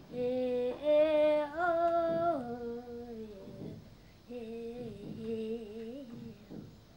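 A young boy's voice chanting words in a sing-song with long held notes. The first phrase steps up twice and falls back, and after a short pause a second phrase comes about four seconds in, on the starting note.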